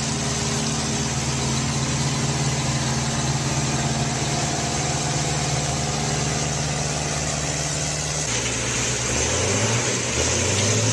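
Engine of a self-propelled nut harvester running steadily, with a hiss of its pickup and fan. About eight seconds in there is a sudden change to another machine whose engine pitch wavers and rises: an orchard tree shaker at work.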